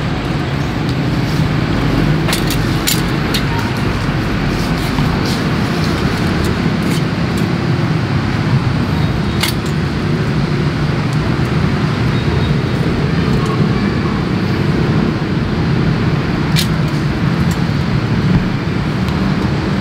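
Steady low rumbling background noise, with a few sharp clicks scattered through it.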